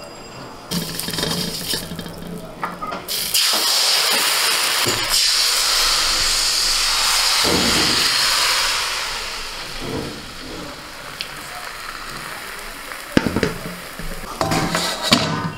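Rice-flour batter sizzling in a hot aluminium kadai: a loud hiss builds a few seconds in, holds for about five seconds, then fades to a softer sizzle. A few light knocks of utensils on the pan come through near the middle and end.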